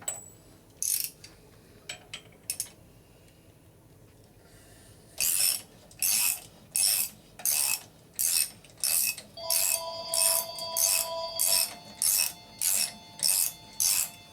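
Ratchet wrench worked in steady strokes, about one and a half strokes a second, after a few light clicks. A phone ringtone starts ringing over it about two-thirds of the way through.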